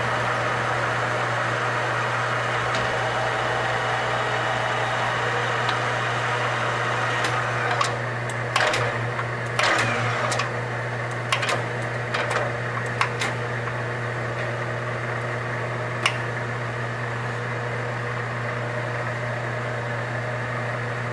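Metal lathe running with a steady motor hum during a single-point threading pass that chases a damaged thread. A run of sharp clicks and taps comes about a third of the way in and lasts a few seconds, with one more click later.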